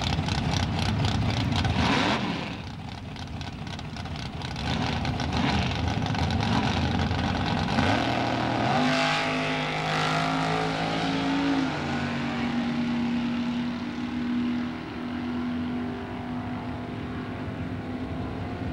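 Drag-racing cars at the starting line, a black Pontiac Firebird among them, their engines running with a choppy, pulsing note. About nine seconds in they run hard down the strip, a steady engine note that steps at the gear changes and stays strong to the end.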